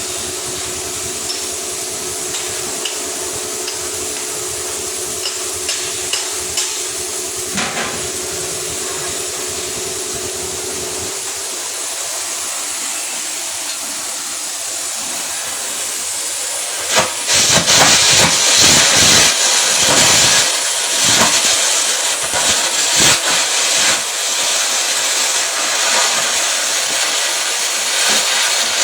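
Electric arc welding: a steady hiss with a faint hum for the first part, then, about seventeen seconds in, a louder, irregular crackling and sizzling of the arc.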